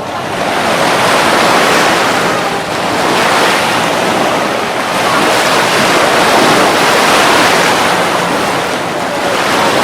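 Atlantic Ocean surf washing on a beach, a loud steady rush that swells and eases every few seconds, with wind buffeting the microphone.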